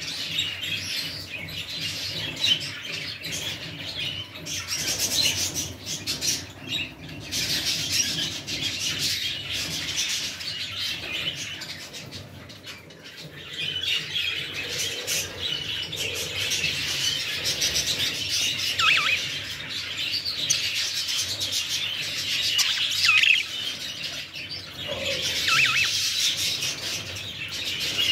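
Budgerigars chattering and chirping without pause, with a few sharp calls that slide down in pitch.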